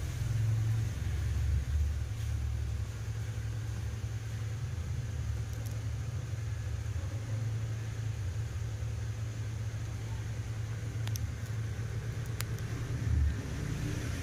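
Steady low rumble with two faint clicks near the end.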